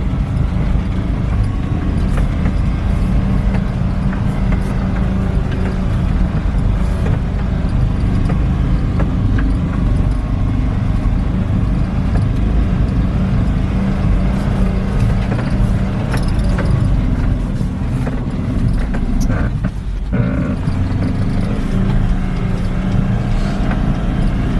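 Suzuki Samurai's engine running under load as it drives through deep snow, a steady low drone with a brief dip in level near the end.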